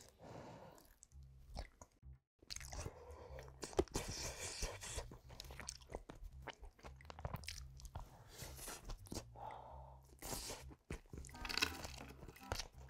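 Close-miked eating: a person chewing and crunching mouthfuls of food in a series of short crackles and bites.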